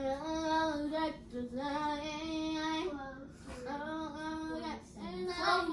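A girl singing, holding long steady notes in about four phrases with short breaths between them.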